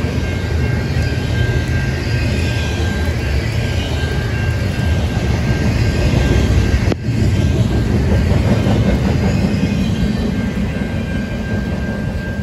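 Norfolk Southern double-stack intermodal train rolling past, its container well cars clattering over the rails in heavy rain. A grade-crossing bell rings on and off over the train noise, which eases as the last cars go by near the end.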